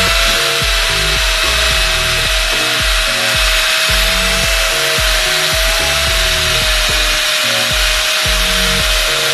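Electric angle grinder with a buffing pad running steadily with a high whine and a hiss, buffing metal polish on a steel motorcycle side stand. Background music with a steady beat plays underneath.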